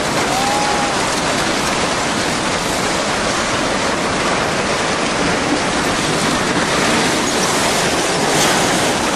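Steady, loud roar of a tsunami surge: churning floodwater carrying wrecked houses and debris.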